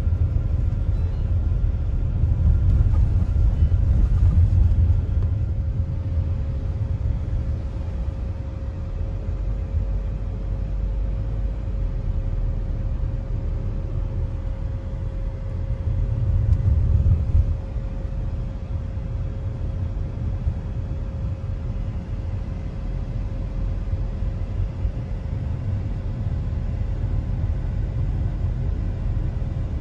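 Cabin road noise of a moving car: a steady low rumble from tyres and engine, swelling a little a few seconds in and again near the middle, with a faint steady hum above it.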